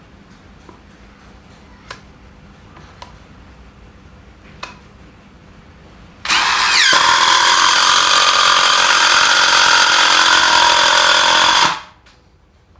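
A few light clicks of the screw being handled, then about six seconds in a DeWalt DCF787 18V brushless cordless impact driver spins up and runs loud and steady for about five and a half seconds, driving a long screw into hard bengkirai wood, before stopping abruptly.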